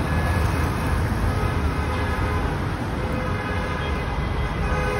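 Steady rumble of road traffic from cars passing on a busy city road.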